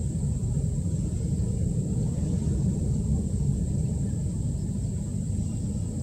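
A steady low rumble with a thin, steady high tone above it; no bird call stands out.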